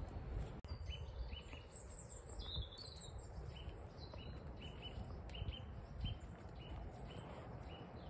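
Small birds chirping, a run of short repeated high notes with a brief higher warble, over the low rumble of a strong wind buffeting the microphone.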